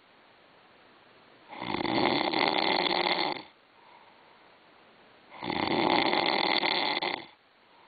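A sleeping person snoring: two loud, long snores, each nearly two seconds, with quiet pauses of about two seconds between them in a steady rhythm. This is snoring of the kind linked to sleep apnea.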